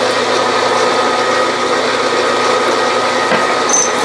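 Bridgeport milling machine running in back gear, in reverse, at slow spindle speed: a steady motor hum with gear whine while the drill turns free, not yet cutting.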